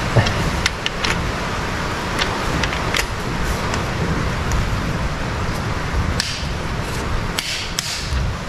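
Scattered light metallic clicks and clinks of a socket and torque wrench being fitted and worked on the connecting-rod cap bolts of a John Deere engine, over a steady hiss of rain.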